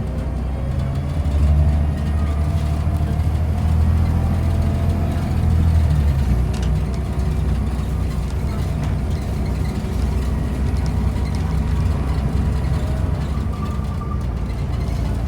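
A Volvo B7TL double-decker bus's engine running under way, heard from on board as a steady low rumble that swells a little now and then. Faint whining tones sit above it.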